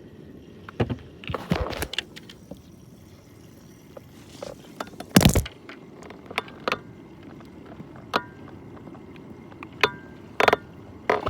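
Scattered knocks and clunks on a small fishing boat over a steady low rumble, with one loud thump about five seconds in and another near the end.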